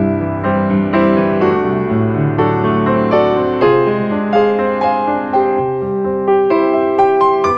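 Background piano music: single notes and chords struck at an unhurried pace, each fading after it is played.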